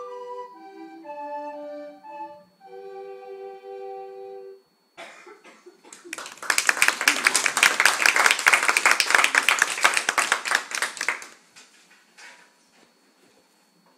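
Recorder ensemble playing the closing notes of a piece in two or three parts, ending on a held chord a little over four seconds in. After a brief pause, applause for about five seconds, which then stops.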